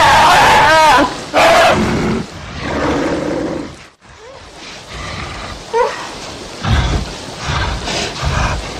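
Brown bears growling and roaring. Loud, wavering snarls come first; the sound drops sharply about four seconds in, then deep growls and a few short high cries follow near the end.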